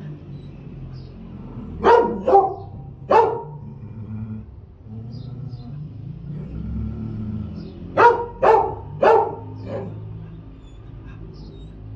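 A dog barking in two short bouts: three barks about two seconds in, then four more around eight seconds in, over a low steady rumble.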